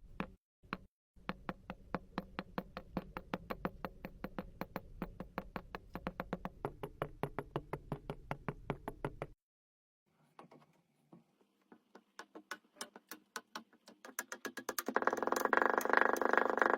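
Rapid crackling and clicking of something being crushed inside a glass, about five or six clicks a second. It breaks off for about a second past the middle, comes back sparser, and turns into a louder, denser crunching near the end.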